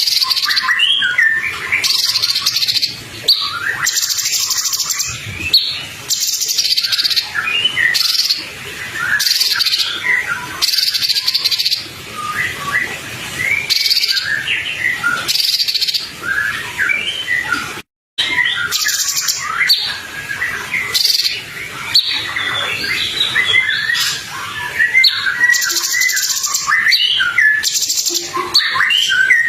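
Songbird masteran recording: a busy run of quick chirps, twitters and short trills from songbirds, over repeated hissy buzzing pulses about a second long. The sound cuts out for an instant just past the middle.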